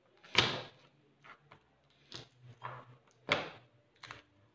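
A few short, sharp knocks and rustles from a kitchen knife and garlic cloves being handled on a plastic cutting board while a clove is peeled by hand, the two loudest about half a second in and about three seconds in.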